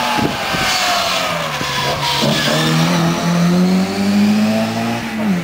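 Rally car engine running hard: its note falls over the first couple of seconds, then climbs steadily and dips briefly near the end, as at a gear change.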